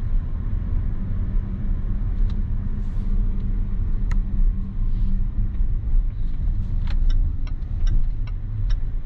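Steady low rumble of a car driving slowly, heard from inside the cabin. From about seven seconds in comes a run of light, even clicks, about three a second, from the turn signal ticking.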